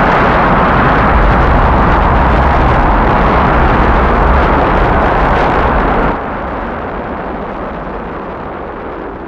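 Rocket engines firing at liftoff: a loud, steady rumble with heavy bass. About six seconds in it drops suddenly to a quieter, thinner rumble, as of the launch heard from far off.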